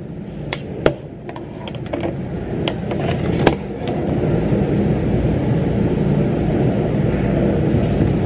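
A few sharp taps and knocks of things handled on a tabletop in the first few seconds, then a steady background noise that swells about four seconds in and holds.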